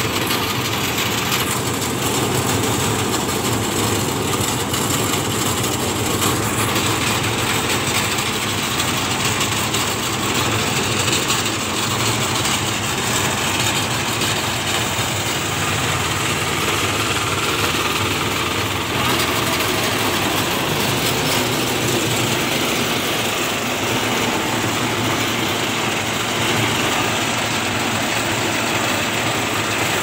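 Small engine-driven rice thresher (bolhot) running steadily as rice stalks are fed into its drum.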